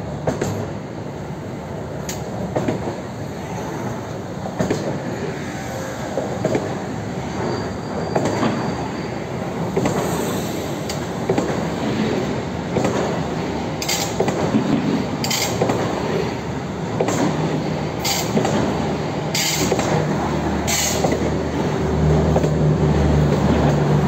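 Strizh (Talgo 250) passenger coaches rolling past as the train pulls out, with a steady wheel-and-rail rumble. Brief high wheel squeals come in the middle, and a low hum grows louder near the end as the grilled end car passes.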